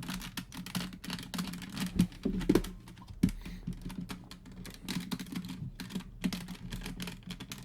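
Hard plastic toy parts clicking and rattling irregularly as a transforming action-figure toy is worked by hand, a pegged part being pried loose.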